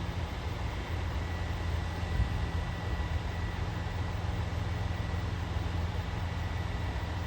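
Diesel engines of a KiHa 283 series express train running steadily: a low, even rumble with a faint steady whine above it.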